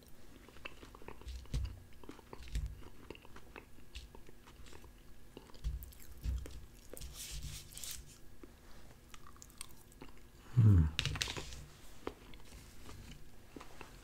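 Close-miked chewing of roasted red potatoes and onions, with small wet mouth clicks and soft low thuds, and a fork tapping and scraping on a plastic plate. About ten and a half seconds in comes a brief, louder low vocal sound, falling in pitch.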